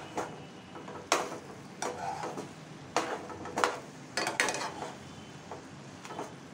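A spoon stirring chicken pieces in a thick yogurt masala in a nonstick kadhai, with irregular knocks and scrapes against the pan about once a second.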